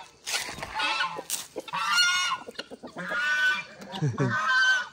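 Domestic geese honking: four calls in a row, each about half a second to a second long.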